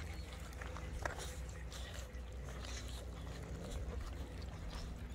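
Rottweiler puppies chewing, licking and tugging at a raw side of beef: a busy run of small wet smacks and clicks from many mouths at once, over a low steady rumble.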